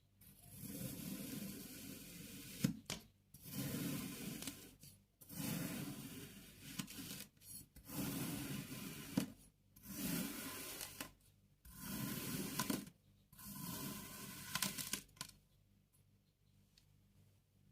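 Kinetic sand being sliced with a blade: about seven slow, grainy scraping cuts, each lasting a second or two, stopping near the end.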